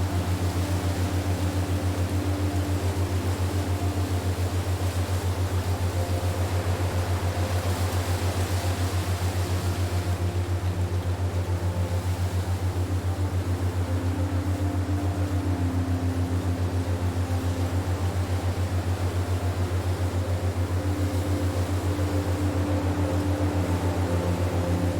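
Ambient meditation drone: a steady, rapidly pulsing low hum with soft held tones above it that slowly fade in and out.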